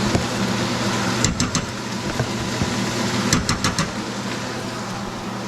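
Hot oil and butter sizzling steadily as shrimp deep-fry and pepper cube steak cooks, over a steady low hum. Two short runs of quick clicks come about a second in and again about three and a half seconds in.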